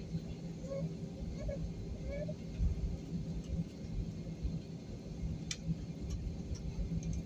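Steady low rumble inside an airliner cabin as the plane taxis, the engines idling with a steady hum under it. A single faint click about five and a half seconds in.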